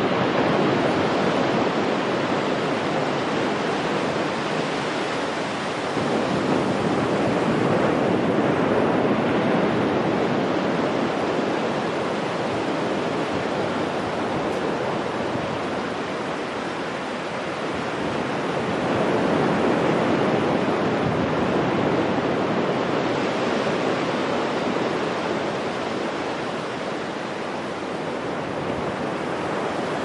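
Ocean surf breaking and washing up a sandy beach: a continuous rush of waves that swells and eases every several seconds.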